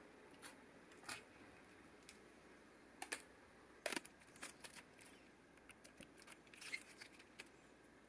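Faint handling sounds of Kapton tape being pulled off and wrapped around a hair dryer's heater housing: scattered light clicks and ticks, with a short rustle near the end.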